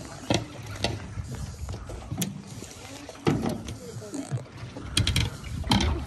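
Fishing reel being worked on a rod over the side of a small boat: scattered sharp clicks and knocks at irregular intervals over the low wash of the sea and boat.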